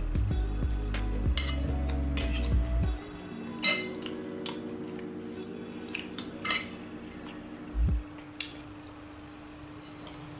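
Cutlery clinking and scraping against a plate during eating, in scattered sharp clicks, busier in the first few seconds.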